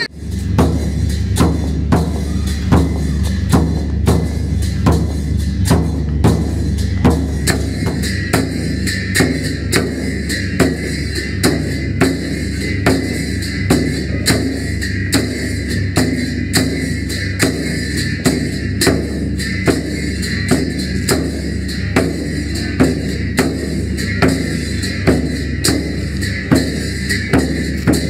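Large Buddhist temple drum beaten with a stick in a steady, even beat, a little under two strikes a second, over a continuous deep rumble from the drum.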